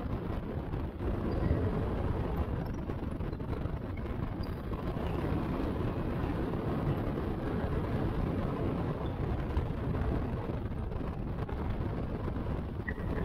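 Steady rush of airflow buffeting an exterior camera microphone on the gear strut of a RANS S-7S bushplane gliding in for a power-off landing, with no clear engine note.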